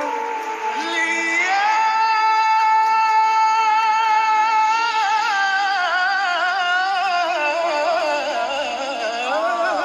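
A solo singer holding one long note from about a second in, then moving into ornamented, melismatic runs with vibrato.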